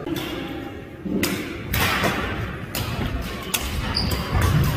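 Badminton rally: racket strings striking the shuttlecock in sharp smacks about every half-second to a second, mixed with players' shoes thudding on the wooden court floor.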